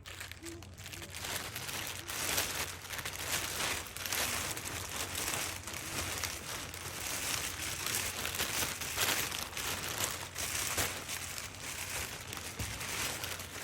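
Continuous irregular rustling and crinkling of bags being handled as camping gear is packed into them.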